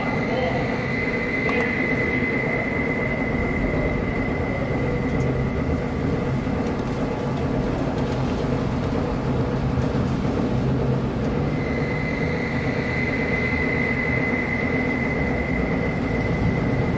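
Steady low drone of an aircraft flying over, with a thin high whine that fades out after a few seconds and comes back over the last five or so seconds.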